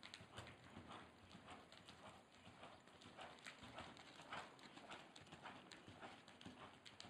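Faint, steady hoofbeats of a horse loping on sand arena footing, several soft thuds a second.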